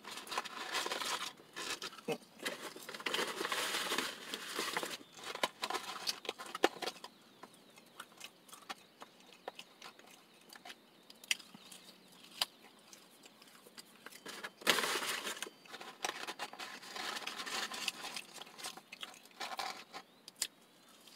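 Someone eating french fries: chewing, with crinkling and rustling of a cardboard fry carton, in irregular bursts with scattered sharp clicks. The bursts are heaviest in the first few seconds and again from about three-quarters of the way through.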